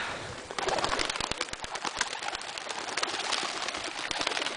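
Tippler pigeons' wings flapping in rapid, irregular strokes as the birds take off out of a wooden release box, starting about half a second in.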